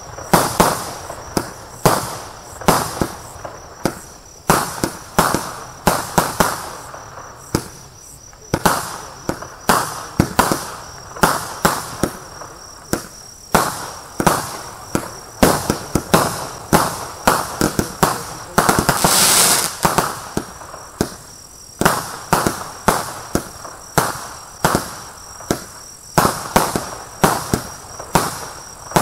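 A 20 mm, 82-shot Silvesterzauber 'Street Fun' fireworks cake firing shot after shot: sharp bangs of launches and small star bursts, about two or three a second, with crackle after many of them. About 19 seconds in, a hissing burst lasts about a second.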